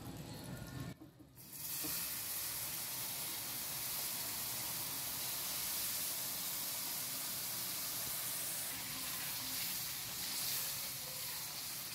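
Hot sugar syrup poured into wheat flour roasting in ghee in a kadai, sizzling and hissing steadily as it hits the hot fat. The sizzle starts about a second and a half in.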